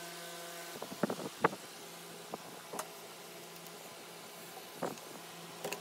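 Small clicks and taps of plastic wiring connectors and cables being handled while the laser module's lead is plugged into the Anycubic Mega Pro 3D printer's wiring. Underneath is a steady low hum, part of which stops about a second in.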